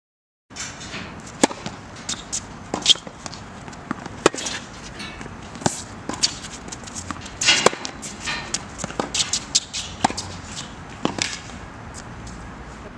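Tennis ball being struck by rackets and bouncing on an outdoor hard court during play, with sneaker footsteps and scuffs between the shots; it starts after a brief silence about half a second in.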